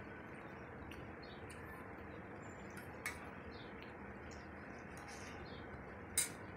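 Soft, wet mouth clicks and smacks of someone chewing dal and rice, scattered over a steady hiss, with two sharper clicks about three seconds in and near the end.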